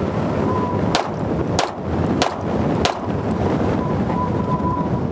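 Four shots from an Atlas Erebus compensated 2011 pistol in 9mm, fired a little over half a second apart, starting about a second in. Wind buffets the microphone throughout.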